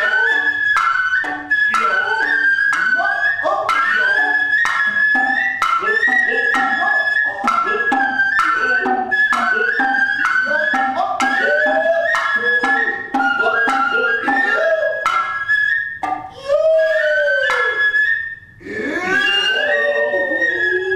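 Noh ensemble music: a nohkan bamboo flute plays a high, wavering line over regular sharp strikes of the kotsuzumi shoulder drum and otsuzumi hip drum, about twice a second, with the drummers' drawn-out sliding calls (kakegoe) between strokes.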